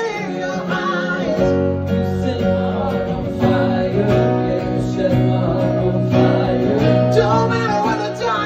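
Acoustic guitar strummed in a live solo performance, with a man singing over it.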